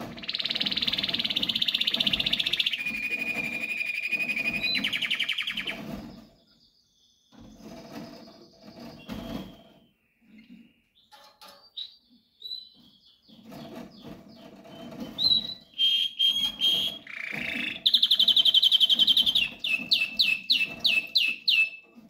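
Domestic canary singing: long rolling trills that shift pitch a couple of times, a quieter middle stretch of short chirps, then another loud trill near the end that breaks into a run of quick falling notes.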